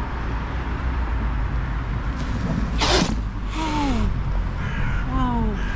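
Harsh animal calls: a short hissing burst about three seconds in, then several short calls that fall in pitch, some coming in quick pairs.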